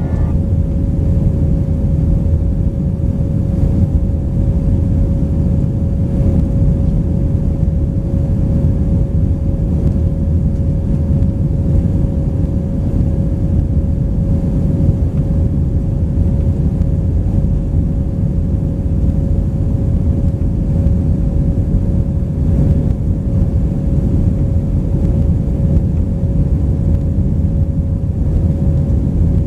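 Steady in-flight cabin drone of an Airbus A319-131, with the rumble of its IAE V2500 turbofans and airflow heard from a rear window seat. A constant hum runs over the low roar without change.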